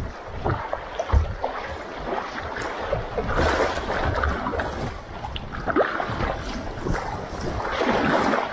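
Rushing river water in a small whitewater rapid, with kayak paddle strokes splashing and wind buffeting the microphone. The rush of the water grows louder about three seconds in.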